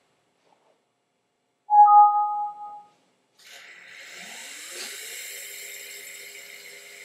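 A loud, steady whistle-like tone lasting about a second, then a CNC router spindle spinning up: a rising whine that settles into a steady pitch over a hiss.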